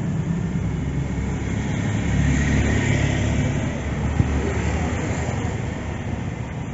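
Steady rumble of road traffic, with a single light tap about four seconds in.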